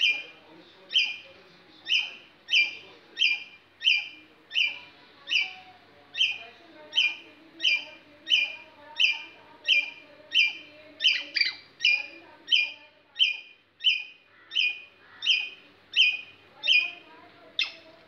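Indian giant squirrel calling: one loud, harsh note repeated over and over at an even pace, about one and a half calls a second.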